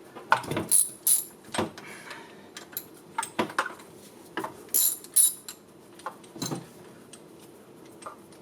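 Metal hand tools clinking and knocking against the golf cart's engine: an irregular scatter of sharp clicks and clanks as the spark plugs are being taken out.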